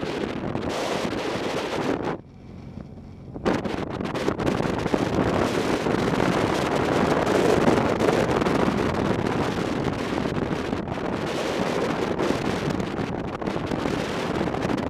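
Wind rushing over the microphone of a camera on a moving motorcycle, with the bike's running noise underneath. The rush drops away sharply about two seconds in and comes back a second or so later.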